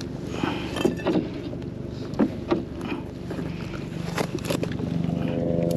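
Short clicks and knocks of a porgy being handled and unhooked from a metal jig, over a steady motor hum that grows louder about five seconds in.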